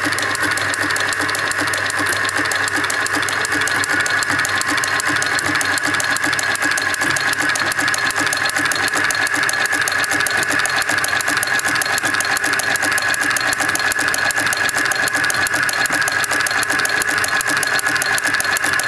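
Gold chain making machine running at speed, its cams and tooling making a rapid, even mechanical clatter as it forms gold wire into chain, with a steady high whine throughout.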